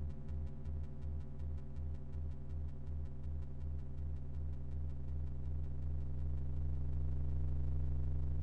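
Electronic drone score: a very low synthesized bass tone pulsing about three times a second, evening out into a steady hum about halfway through, under a stack of held higher tones and faint fast ticking. It swells slightly near the end.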